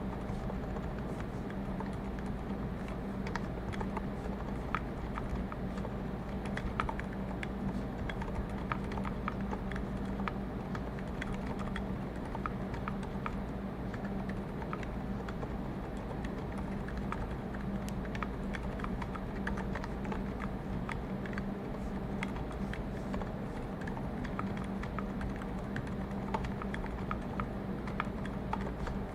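Typing on a mechanical keyboard with lubed Zeal MX Zilents silent tactile switches in a brass plate and GMK keycaps: a quiet, irregular stream of muted keystrokes over a steady low hum of background noise.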